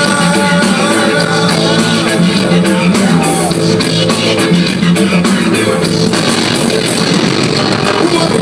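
Live rock band playing loud through a PA: electric guitar, bass and drums, with a singer's voice over them.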